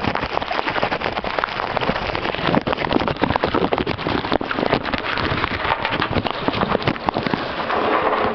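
Rain falling: a steady, dense patter of many small, irregular drop hits.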